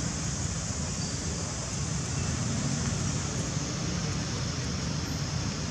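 Steady outdoor background noise: a low rumble with an even high hiss above it, unchanging throughout, with no monkey calls.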